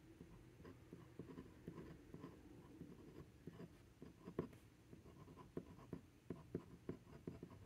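A pen nib scratching on a small paper card as a word is written out in short, irregular strokes; faint.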